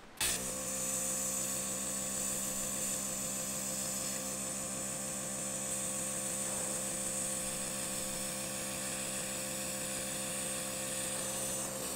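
Small electric air pump running steadily, blowing air through a hose into an inflatable sleeping pad; it switches on just after the start and cuts off at the very end.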